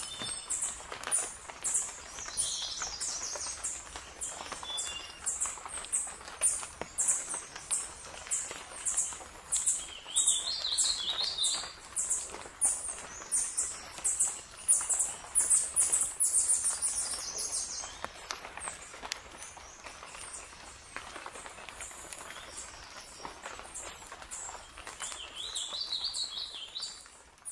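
Birds chirping: a quick series of short, high chirps repeating two or three times a second, with a fuller call of several notes about ten seconds in and again near the end.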